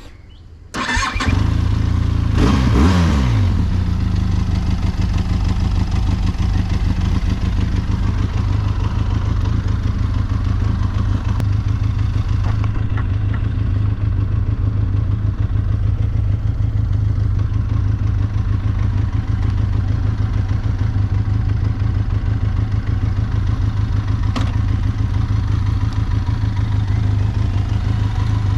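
Benelli TRK 502X motorcycle's parallel-twin engine starting about a second in. Its revs flare and fall back within a couple of seconds, then it idles steadily.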